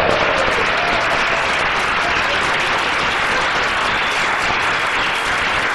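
Large crowd of people applauding steadily, dense hand clapping with some voices mixed in.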